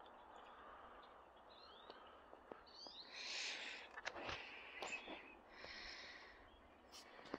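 Near silence: faint background hiss with a few soft clicks and rustles.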